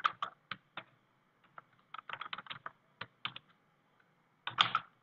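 Typing on a computer keyboard: short runs of quick key clicks with brief pauses between them, and a louder flurry of keystrokes near the end.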